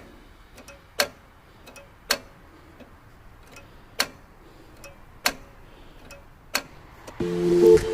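A series of six sharp clicks or taps, spaced about one to one and a half seconds apart, over a low background. Music begins near the end.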